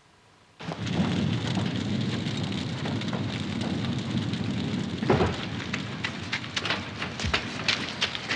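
A caravan fire, set off by a gas heater explosion, starts abruptly about half a second in: a loud, steady roar of flames. From about halfway on, sharp crackling and popping grows more frequent.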